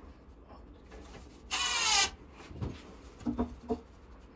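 Cordless drill run in one short burst about one and a half seconds in, its motor whine rising as it drives a screw into a 2x4. A few lighter knocks follow.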